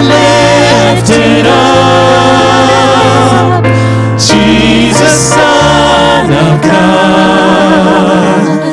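Church worship team singing a praise song into microphones over instrumental accompaniment with held low bass notes.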